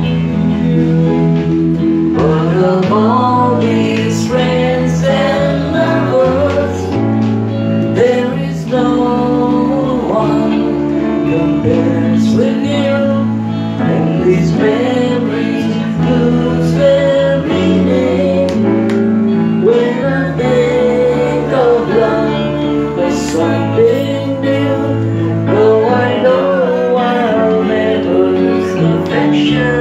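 Live music: an electric guitar plays a lead melody with bent, wavering notes over steady chord backing.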